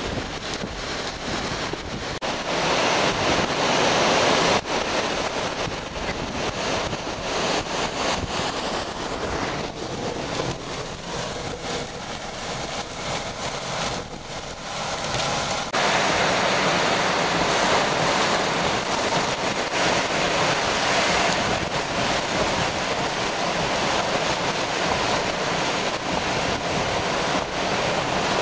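Hurricane-force wind and heavy rain, gusts buffeting the microphone in a steady rushing noise that shifts abruptly in loudness a few times.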